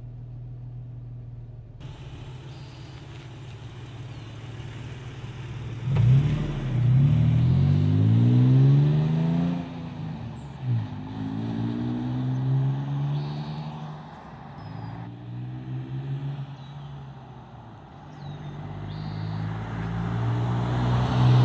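Toyota Tacoma pickup's engine idling briefly, then the truck accelerating toward and past, its revs climbing and dropping back at each upshift. It is loudest as it passes near the end.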